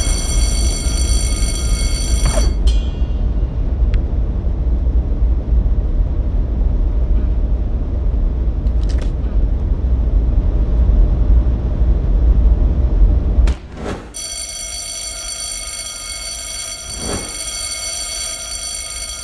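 A steady, high-pitched electronic ringing tone, like an alarm, over a heavy low rumble. The ring cuts off about two and a half seconds in and comes back after a click near the end. The rumble stops suddenly a little before that.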